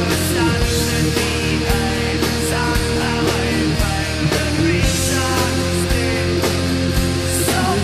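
Electric guitar in D standard tuning playing a lead melody with bent and sliding notes, over a full rock backing track with a steady drum beat, bass and held chords.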